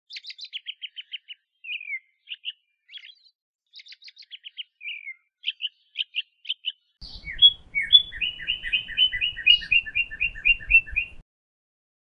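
European robin chirping and singing: runs of short, quick notes, then from about seven seconds in a louder, faster trill of paired notes over a faint low rumble.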